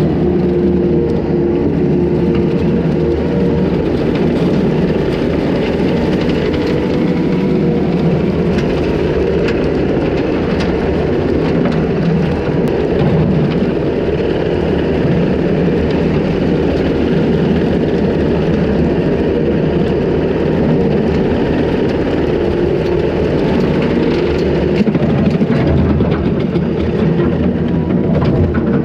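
Takeuchi TL250 compact track loader's diesel engine running steadily under load while its hydraulic brush cutter mows wet grass and brush, heard from the operator's seat.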